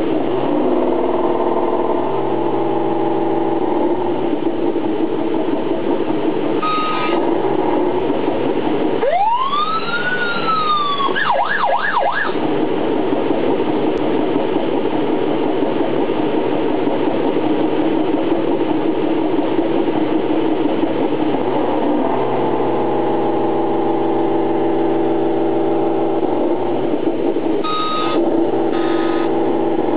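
Electronic sound-effects unit on a 1/12-scale RC snow vehicle playing a simulated engine running steadily, with a siren-like rising-and-falling whoop about a third of the way through. Short beeps sound twice, about a quarter of the way in and near the end.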